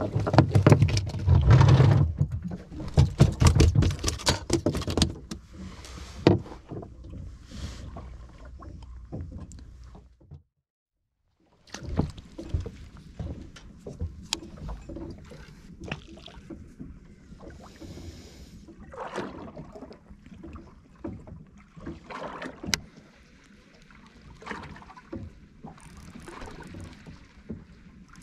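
Rapid, loud knocks and slaps on a small boat's deck for the first few seconds, then a brief dropout. After that come quieter, scattered clicks and small handling sounds over a faint haze of water and wind.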